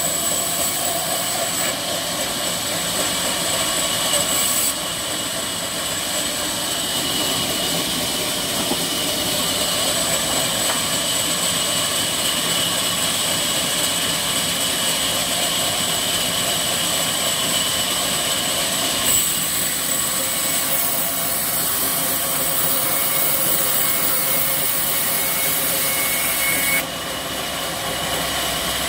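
Sawmill band saw running and slicing a rain tree log lengthwise into slabs: a steady rushing noise with a high whine, easing somewhat near the end.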